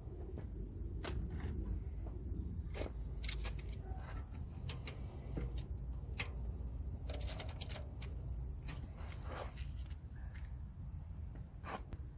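Hand tools working bolts on an engine: scattered metallic clicks and clinks, with a quick run of clicks about seven seconds in, over a steady low hum.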